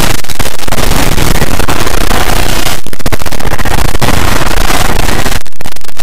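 Many heavily effected video soundtracks playing at once and piling up into one loud, distorted wall of noise at full level, with no clear voice or tune. The noise thins briefly about three seconds in and again near the end.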